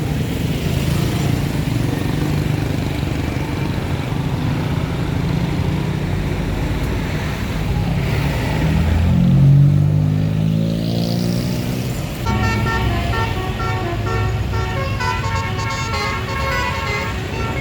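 A bus engine running amid traffic, revving up with a rising pitch around the middle; then, about twelve seconds in, a telolet horn starts playing a quick tune of short, changing notes.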